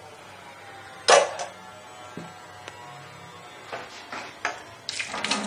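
Kitchen handling sounds: a plate and utensils knocking against a plastic food-chopper bowl and the worktop while ingredients are scraped in. The loudest is a sharp knock with a brief ring about a second in, followed by a few lighter knocks and a cluster of clinks near the end.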